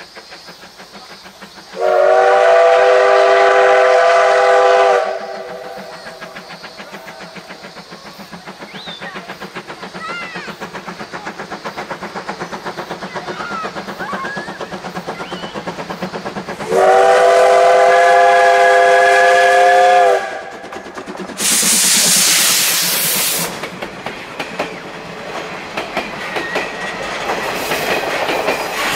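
C12 steam tank locomotive sounding its steam whistle twice, each blast about three seconds long, with a rapid exhaust chuff growing louder between the blasts as it works toward the camera. Just after the second blast comes a loud hiss of steam, and then the coaches' wheels clack over the rail joints as they pass close by.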